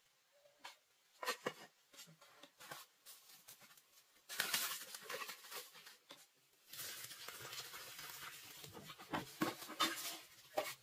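A metal cooking pot being handled over a campfire: scattered knocks and clicks, then from about four seconds in longer stretches of scraping and clattering as the lidded pot is lifted off the fire and set down on bamboo poles.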